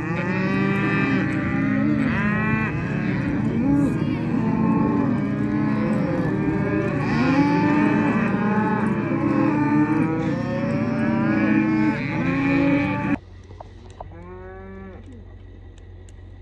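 A herd of cows and calves bawling continuously, many calls overlapping. About 13 seconds in, the chorus stops abruptly and a single bawl follows over a quieter background.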